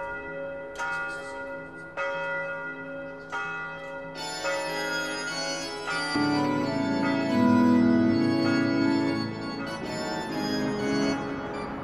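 Church bell tolling, one ringing strike about every second and a quarter, then organ music comes in about four seconds in, with deep bass notes joining about halfway through.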